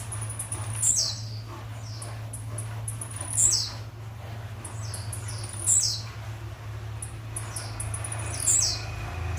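Blue-black grassquit (tiziu) singing: a short, high call that falls quickly in pitch, repeated four times about two and a half seconds apart, with faint short ticks between the calls. A steady low hum runs underneath.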